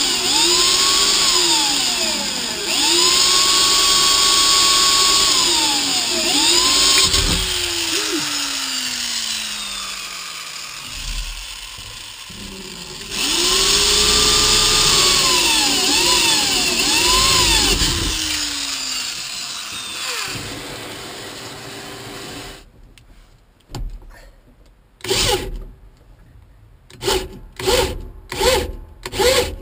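Handheld power drill boring through a steel floor plate, its motor whine rising and falling in pitch as the bit loads and frees up. It winds down about seven seconds in and starts again at about thirteen seconds. Near the end come several short, separate bursts of the drill.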